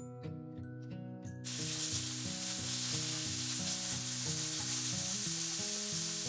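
Sliced bacon frying in a hot nonstick pan, sizzling loudly from about a second and a half in as it is stirred with a spatula. Background music with a melody plays throughout.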